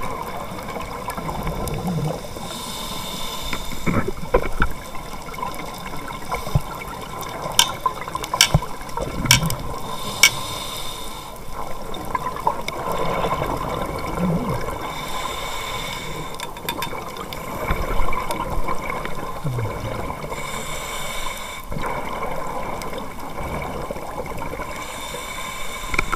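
Scuba diver breathing through a regulator, heard underwater: exhaled bubbles rush out in hissing bursts every few seconds over a steady watery wash, with a few sharp clicks.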